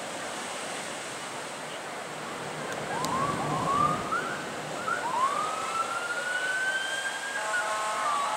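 A siren whooping over the wash of surf: about three seconds in, a few short rising whoops, then a long rising wail that levels off. Near the end it gives way to a steady blast of several tones at once.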